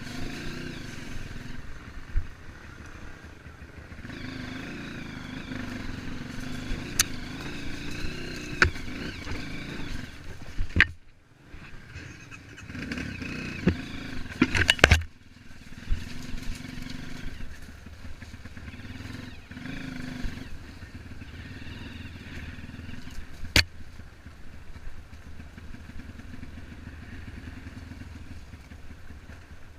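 Trail motorcycle engine running and revving up and down in pitch while riding over rough ground, with sharp knocks and clatter from the bike; the engine sound drops away briefly about a third of the way through, and the loudest knocks come about halfway.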